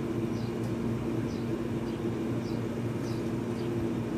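Steady low mechanical hum with two held tones, and short high chirps, bird-like, falling in pitch and repeating about once a second.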